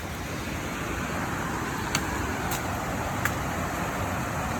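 Waterfall rushing steadily, a little louder from about a second in, with three sharp clicks in the middle.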